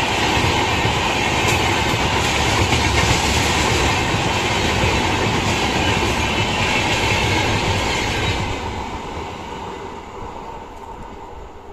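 Double Decker Express's double-decker AC chair car coaches running past on the adjacent track, their wheels on the rails making a loud, steady noise that fades away after about eight seconds as the last coach goes by.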